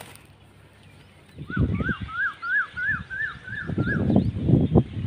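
A bird calling a quick series of about eight rising-then-falling notes, about three a second, that stop a little after four seconds in. Under it is louder low rumbling from wind buffeting the microphone, from about a second and a half in.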